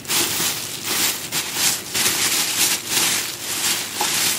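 Clear plastic packaging bag crinkling and rustling as hands work it around the speaker dock inside, a dense crackle that comes in repeated louder surges.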